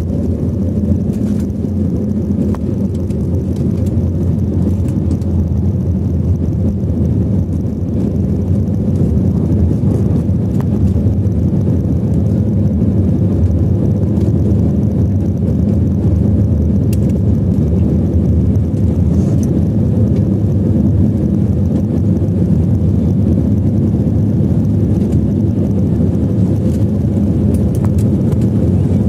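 Airbus A320neo cabin sound at takeoff thrust, from the end of the takeoff roll into the initial climb: a loud, steady engine rumble heard from a window seat over the wing.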